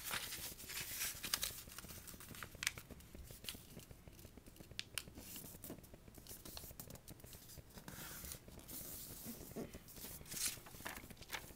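A sheet of paper being folded and creased by hand: scattered soft rustles, crinkles and small ticks as it is handled and pressed flat.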